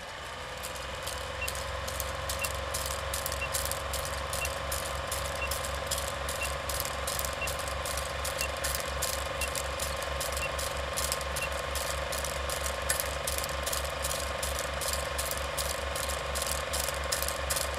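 Film projector running sound effect: a steady mechanical clatter of about three clicks a second over a low pulsing hum.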